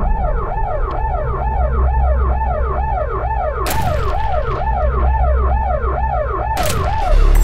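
Police car siren on a fast yelp, rising and falling in pitch about two to three times a second, over a low engine rumble. A gunshot cracks about three and a half seconds in, and two more sharp shots come near the end.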